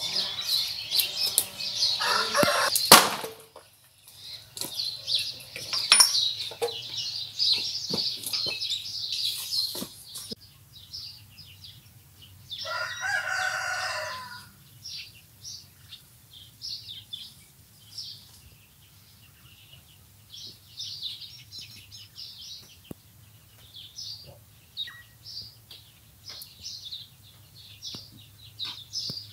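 A rooster crows once, a call of about two seconds roughly halfway through, while small birds chirp around it. For the first ten seconds there is a dense high hiss with a few sharp knocks.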